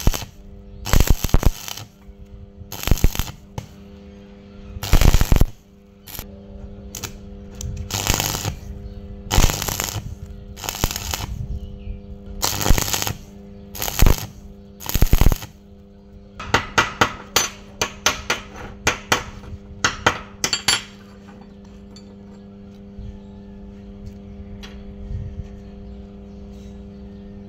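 Stick (arc) welding with a homemade electrode holder: about ten short bursts of arc crackle over the first fifteen seconds as short welds are laid. A quick run of sharp clicks follows for about four seconds, then only a steady hum.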